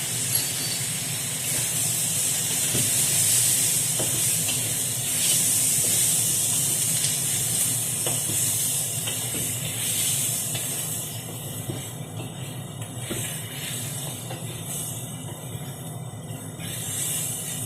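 Fermented pork (kasam babi) frying in hot oil in a pan with garlic, shallot, ginger and lemongrass, a steady sizzling hiss that eases off about eleven seconds in. A few light clicks come near the end.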